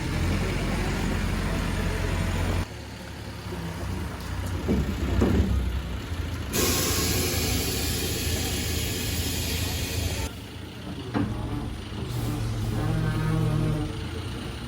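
Heavy truck engines running with a low steady hum, in short clips cut together; for about four seconds in the middle a loud, even hiss covers everything.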